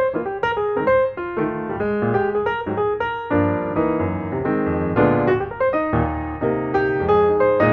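Background piano music: a continuous run of struck notes, each fading away after it is played.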